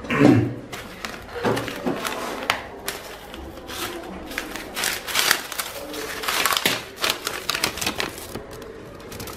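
Paper food parcel being untied and unwrapped: the string tugged off and the printed paper wrapper rustling and crinkling, with irregular small clicks and scrapes. A dull knock at the very start is the loudest sound.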